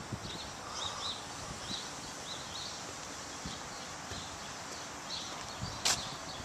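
Small birds chirping again and again over a steady outdoor hiss, with light footsteps on pavement. A single sharp click comes near the end.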